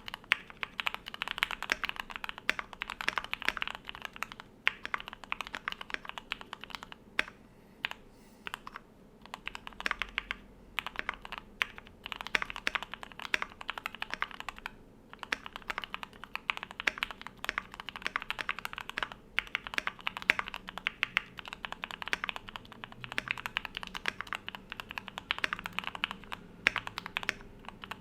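Typing on a Keychron Q1 V2 gasket-mount mechanical keyboard with lubed Gateron Milky Yellow linear switches, PBT dye-sub keycaps and added foam inside: quick, dense keystrokes with a few short pauses, around a quarter of the way in and again about halfway.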